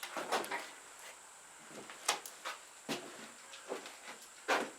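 Objects being handled on a work surface: a handful of separate short clicks and knocks, the loudest near the end.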